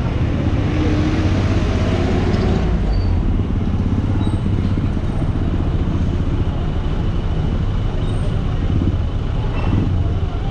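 Flatbed tow truck's engine idling steadily, a continuous low rumble, while its wheel lifter is hooked onto a van, with street traffic around it.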